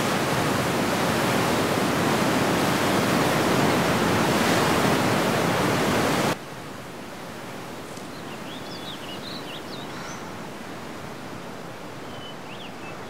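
Loud, steady rushing roar of a flood wave of water surging. It cuts off suddenly about six seconds in, leaving a much quieter steady hiss with a few faint high chirps.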